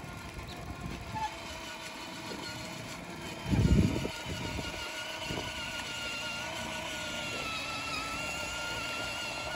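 Electric motor of a child's ride-on go-kart whining steadily as it drives, with a brief low rumble about three and a half seconds in.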